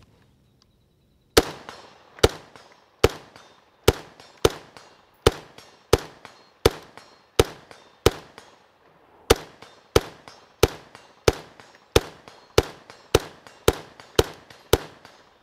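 Robinson Armament XCR-L rifle fired in steady semi-automatic strings, about twenty sharp shots less than a second apart with a brief pause midway, each shot followed by a short echo.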